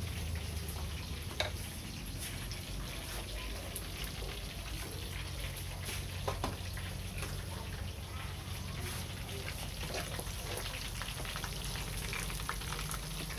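Pieces of tofu deep-frying in a pan of oil, already golden: a steady sizzle with scattered fine crackles. A couple of light knocks come about a second and a half in and again about six seconds in.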